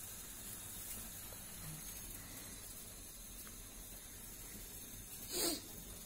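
Faint steady hiss of a lit gas stove with pans of water heating on it. Near the end comes one short, sharp puff of breath, blowing out the flame on a just-lit incense stick.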